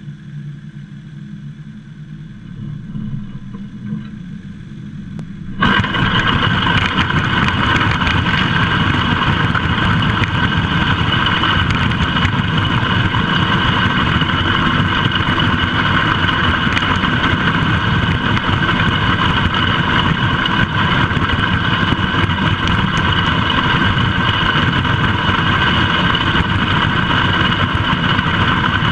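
Allis-Chalmers B tractor's four-cylinder engine running, then about five seconds in a steel spike-tooth drag starts dragging over the gravel driveway: a loud, steady scraping and rattling of steel teeth through stones, with the engine underneath.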